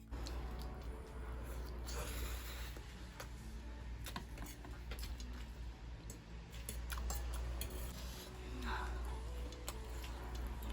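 Scattered light clicks and scrapes of eating utensils against a bowl and plate during a ramen meal, over a steady low hum.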